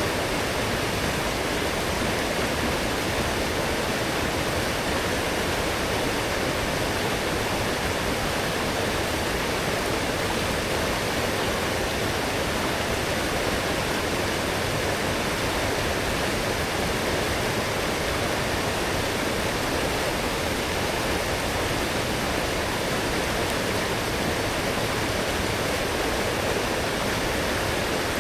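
Forest stream running full and strong after heavy rain: a steady, unbroken rush of flowing water.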